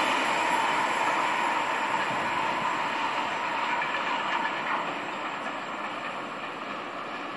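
A train pulling away down the line, its running noise on the rails fading steadily as it recedes into the distance.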